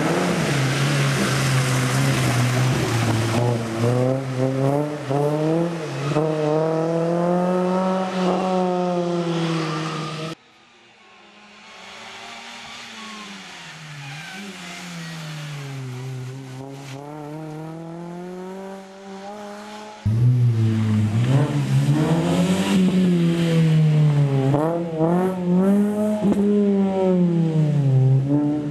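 Renault Clio rally car's engine revving hard, its pitch climbing and dropping again and again through gear changes and lifts. The sound cuts abruptly about ten seconds in to a quieter, more distant car, and cuts back to a loud close pass about twenty seconds in.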